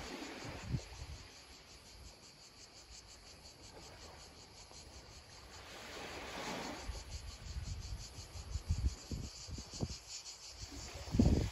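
Insects chirping in a fast, even pulsing chorus. A small wave washes up on the shore about six seconds in, and low gusts of wind buffet the microphone in the second half.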